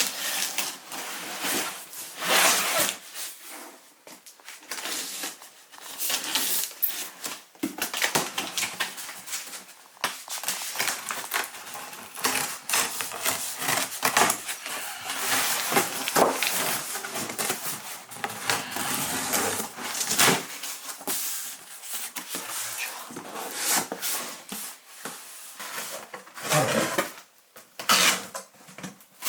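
Packaging being unwrapped and handled: irregular rustling and crinkling with short clicks and light knocks.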